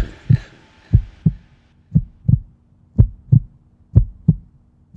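Heartbeat sound effect: a deep double thump, lub-dub, repeating evenly about once a second, with a faint steady hum behind it. The tail of the preceding music dies away in the first second.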